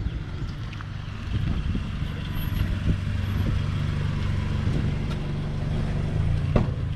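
Motor vehicle running steadily: a low engine hum with road noise, and a brief sharp knock near the end.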